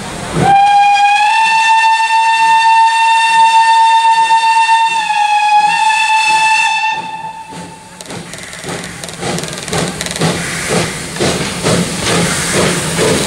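Steam locomotive whistle blowing one long steady blast of about seven seconds, dipping slightly in pitch partway through. As the whistle stops, the locomotive's exhaust chuffs come through as a steady rhythm of about two to three beats a second while it pulls its train away.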